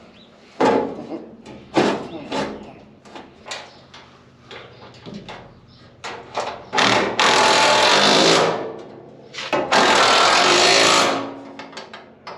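Several sharp metal knocks and clanks, then a power tool running in two loud bursts of about two seconds each, during reassembly of a hay mower's sheet metal.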